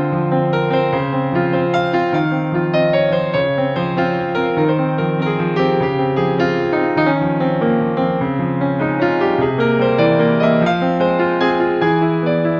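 Background music: piano or electric piano playing a steady run of notes.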